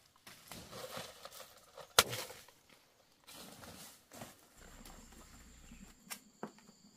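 Soft footsteps and rustling through leaf litter and undergrowth, with one sharp snap about two seconds in, the loudest sound, and another click near the end.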